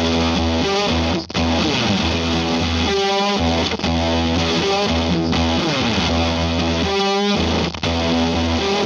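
Electric guitar played through fuzz pedal distortion: a thick, sustained riff that repeats about every four seconds, with downward slides and a wavering held note in each pass.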